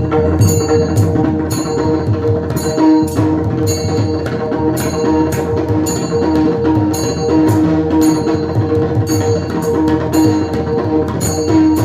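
Instrumental passage of a Warkari kirtan tune: pakhavaj drumming with small hand cymbals struck in a steady rhythm, about two to three ringing clashes a second, over steady held notes.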